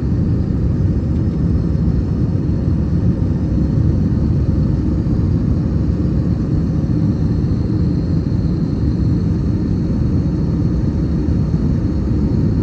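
Cabin noise inside an Airbus A321 climbing after takeoff: a steady low rumble of the jet engines and rushing air, with a faint steady high whine above it.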